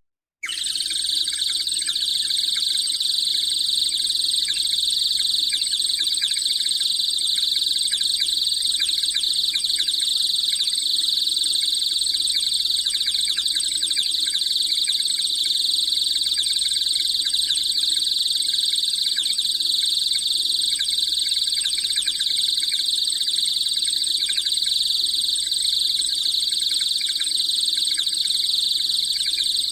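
A dense, steady, high-pitched animal chorus with no pauses, starting about half a second in.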